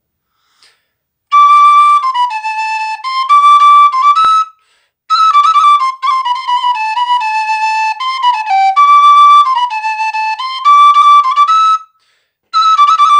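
Solo frula, the Serbian wooden end-blown fipple flute, playing a melody in phrases, with short pauses for breath about four and a half seconds in and again near the end.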